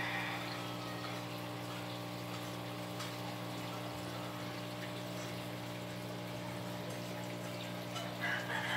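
A steady mechanical hum with a faint even hiss behind it. Brief higher-pitched sounds come just at the start and again near the end.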